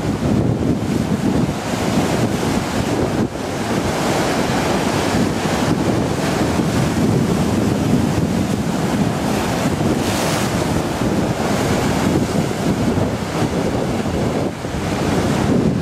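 Storm-surge waves surging and breaking against a sea wall in a continuous heavy rush of surf, swelling briefly about ten seconds in. Wind buffets the microphone throughout.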